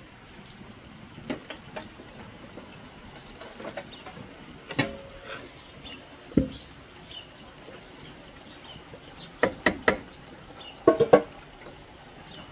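Steel kitchenware knocking and clinking: a metal ladle and pitcher striking the steel pot as milk is poured and ladled for curd. The clinks come singly at first, then in two quick clusters of several strikes near the end.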